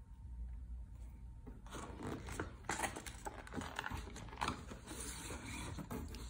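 Paper pages of a picture book being turned and handled: rustling and rubbing with small scrapes and clicks, starting about two seconds in.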